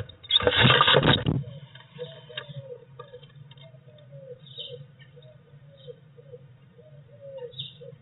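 A blue tit's loud flurry of wingbeats and scrabbling inside a wooden nest box, lasting about a second, as one bird leaves through the entrance hole. After it comes a steady low hum with soft, short sounds from the bird that stays inside.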